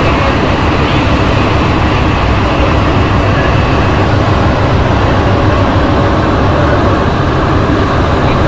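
Inside a Santiago Metro NS-93 rubber-tyred train running at speed: a loud, steady rumble of the running gear and motors, even throughout.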